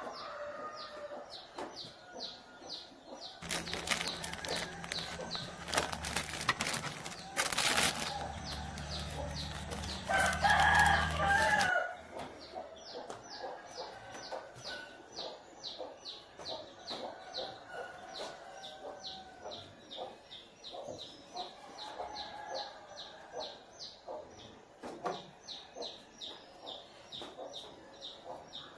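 Farmyard chickens clucking and a rooster crowing, over a steady high chirping repeated two or three times a second. For several seconds in the first half a louder rushing noise with a low hum covers them.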